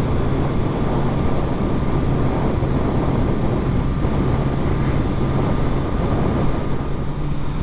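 Kawasaki Z900 SE inline-four engine running at a steady pace under heavy wind rush while riding, heard through a helmet-mounted microphone.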